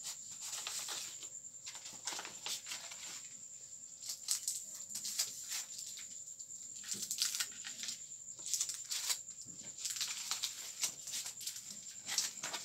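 Scattered rustles and soft clicks of a paper title card with a cardboard border being handled and put up on a wall, with a faint steady high-pitched tone underneath.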